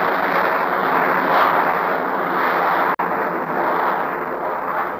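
Aircraft engine droning overhead, swelling in and holding steady as a loud rushing drone, with a brief dropout about three seconds in.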